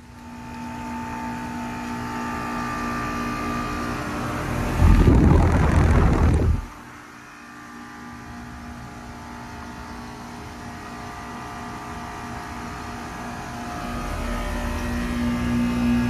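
Outdoor air-conditioner condensers running: a steady hum of compressor and fan with several fixed tones. About five seconds in, a loud rushing noise lasts a second and a half and cuts off sharply. After it a Goodman condenser's steady hum carries on and grows louder near the end.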